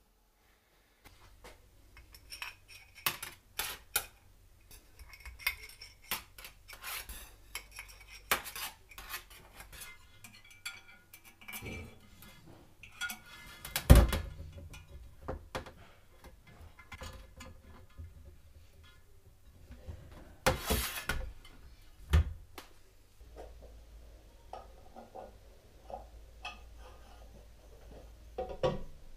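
Steel wheel spokes and metal parts clinking and clattering as a spoked motorcycle wheel is laced and handled, with many sharp clinks, a loud knock about halfway through and a rattling cluster a few seconds later. A faint low hum runs underneath for stretches.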